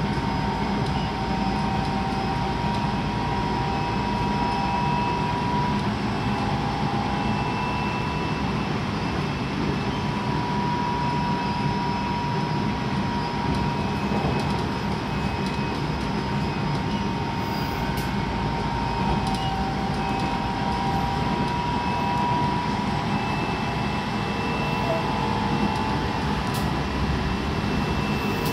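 Tobu 9050 series electric commuter train, with its Toyo GTO-thyristor inverter drive, heard from inside the passenger car while running between stations: a steady rumble of wheels on rail with a mid-pitched whine from the traction equipment that comes and goes.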